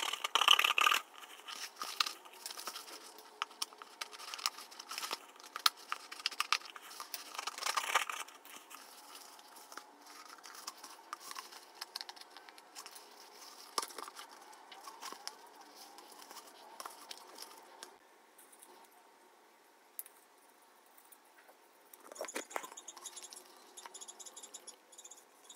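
Scissors cutting the stiff paper of a dried papier-mâché shell: crunchy snips and crackling paper, busy for the first eight seconds. Then come sparser rustles and scrapes as the shell is handled, with a short scratchy burst near the end.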